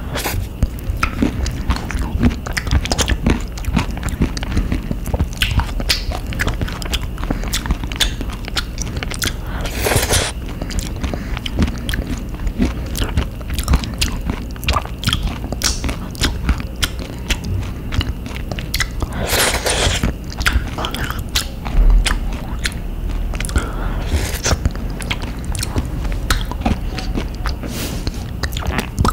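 Close-up eating sounds: a person chewing a mouthful of avocado ice cream with crunchy chopped almonds, many small crisp crunches, with two longer crunches about ten seconds in and again near twenty seconds.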